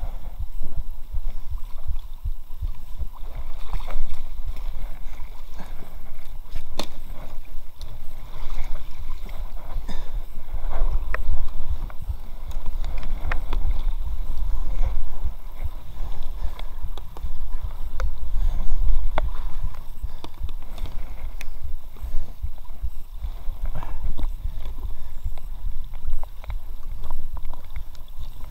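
Water rippling and splashing around a small inflatable dinghy drifting down a shallow brook, with a heavy rumble of wind on the microphone. Scattered short clicks and knocks run through it.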